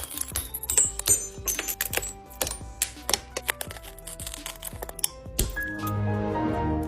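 Rapid, irregular sharp clicks and glassy tinkles as the shattered back glass of an iPhone is chipped and broken away, over background music.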